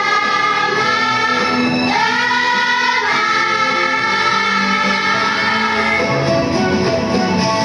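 Children's choir singing together in long held notes, with new sung phrases beginning about two and three seconds in.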